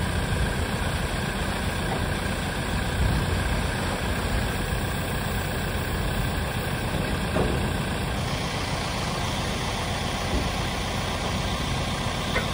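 Diesel engine of a New Holland Braud grape harvester running steadily, its hoppers raised to tip the harvest of grapes into a trailer.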